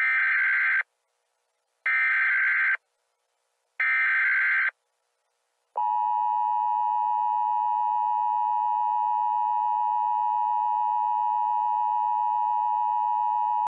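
Emergency Alert System header: three short bursts of screeching SAME data about a second apart, then the steady attention tone, which starts about six seconds in and holds.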